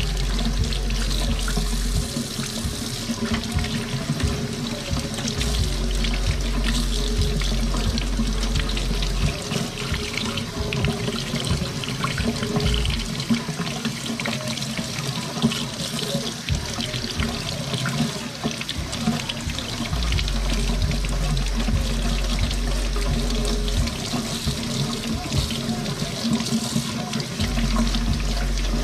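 Kitchen faucet running steadily onto snow crab legs held under the stream, the water splashing into a stainless steel sink as the legs are rinsed.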